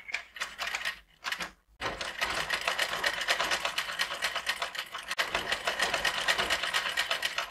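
Sewing machine stitching crinoline (horsehair braid) onto organza. It makes a couple of short starts in the first two seconds, then runs steadily at an even, rapid stitch rate, dipping briefly about five seconds in.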